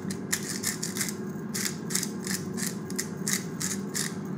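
A handheld pepper grinder being twisted, crunching black peppercorns in a fast run of short gritty clicks, about four to five a second, with a brief pause about one and a half seconds in.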